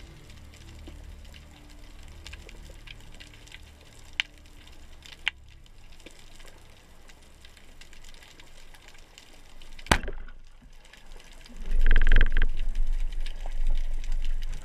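Underwater ambience picked up by a camera in its housing: a low steady rumble with scattered faint clicks. A single sharp click comes about ten seconds in, and soon after a louder rushing burst that lasts a couple of seconds.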